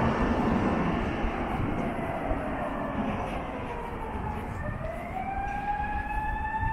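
An emergency vehicle's siren wailing over a steady background rumble. Its pitch slides slowly down, then rises again about five seconds in and holds high.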